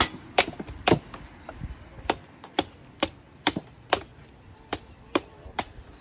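Machete chopping the husk of a young green coconut held on a wooden stump: a steady series of sharp chops, about two a second, a dozen or so strikes.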